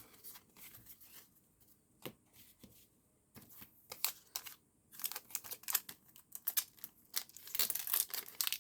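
Pokémon trading cards being handled and slid together, with scattered soft taps and brushes at first and denser rustling of cards and packaging from about five seconds in.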